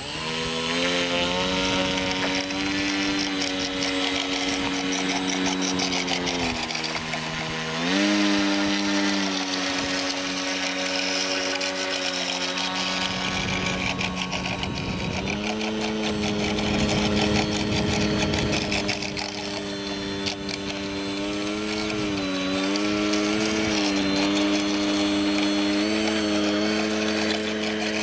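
Electric outrunner motor and propeller of a radio-controlled Tiger Moth biplane model running at low power as it taxis on the grass. It makes a steady whine that steps up and down in pitch with the throttle, and it wavers several times near the end.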